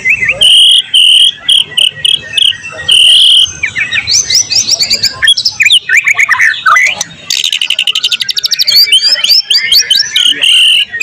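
White-rumped shama (murai batu) singing loudly: a run of clear, repeated whistled notes, then quick rising and falling chirps and a fast, buzzy trill, a varied song filled with mimicked phrases.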